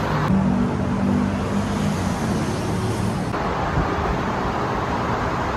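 Steady noise of road traffic on a busy multi-lane highway, with a low hum of engines.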